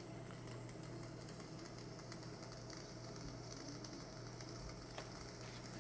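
Grant's handheld steam cleaner running faintly: a steady low hum with a light hiss of steam. The steam is leaking past a cracked O-ring at the top.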